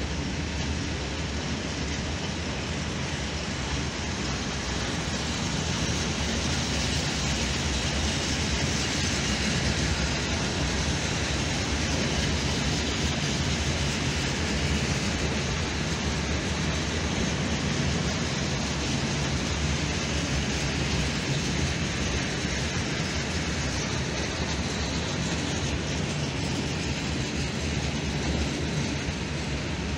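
Long freight train of open coal wagons rolling past, a steady noise of steel wheels running on the rails.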